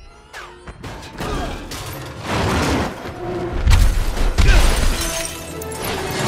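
Film action sound effects: a series of heavy crashes and glass shattering as cars are flipped and wrecked, over music.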